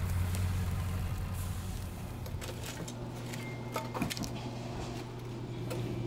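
A low rumble, then from about two seconds in a scatter of metallic clinks as steel kitchen tongs knock against a stainless steel pan of cooked bacon, over a steady low hum.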